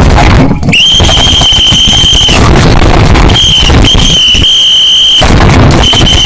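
A very loud, shrill high-pitched squeal held at one steady pitch over a harsh, distorted noise. It starts about a second in and sounds in stretches of one to two seconds with short breaks.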